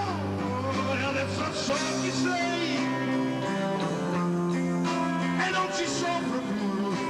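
Live rock band playing an instrumental passage, electric guitar notes held and bent over bass.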